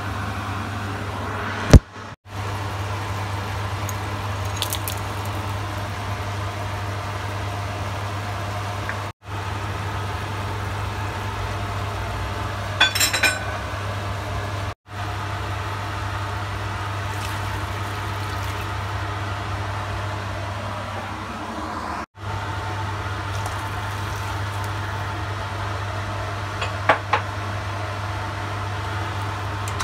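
Steady low hum of kitchen background noise, with a sharp knock about two seconds in and brief metallic clinks of the cooking pot around the middle and near the end. The sound drops out for an instant four times.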